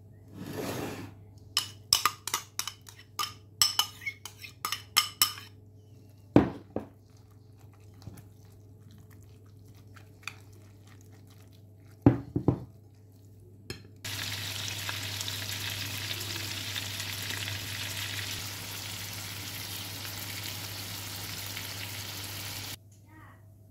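A fork clicking and knocking against a bowl while mixing minced meat with egg and bread, in quick clusters of clicks with a few louder knocks. In the second half, meat patties sizzle steadily in oil in a frying pan, and the sizzling cuts off suddenly near the end.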